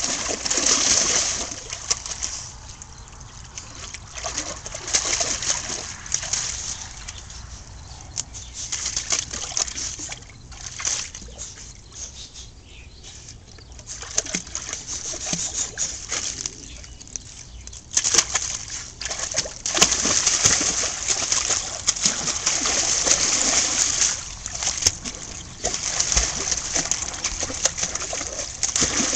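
A dog splashing and wading in a garden pond: water sloshing and splattering in irregular bursts, quieter for a few seconds near the start and again mid-way, and busiest in the last third.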